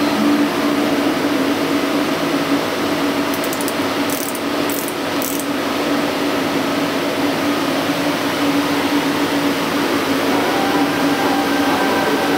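CNC machine running: a steady mechanical hum with a constant low drone, with a few light clicks between about three and five and a half seconds in.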